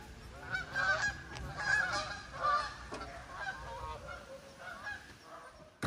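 A flock of Canada geese flying over, honking repeatedly with many overlapping calls, the calls growing fainter near the end.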